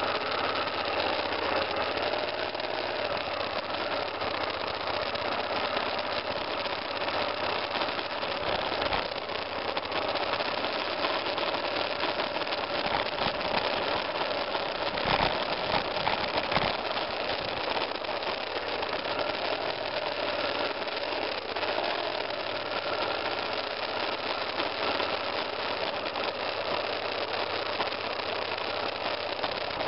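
BMW F 650 GS Dakar's single-cylinder engine running at a steady low speed as the motorcycle rides a muddy dirt trail, with a few thumps around the middle.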